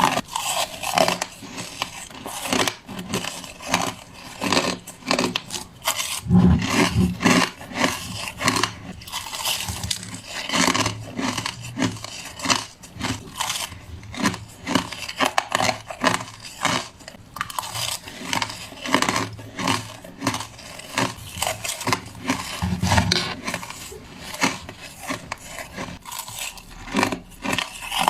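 Crushed ice being bitten: a rapid, continuous run of crisp crunches, with a few heavier, deeper crunches about six seconds in and again a little past twenty-two seconds.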